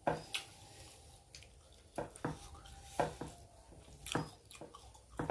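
Eating utensil clinking against a plate: about seven sharp separate clicks spread irregularly, several leaving a short ring from the plate.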